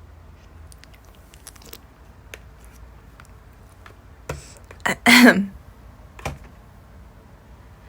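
Light scattered clicks of typing on a computer keyboard, with a short burst of a woman's laughter about five seconds in.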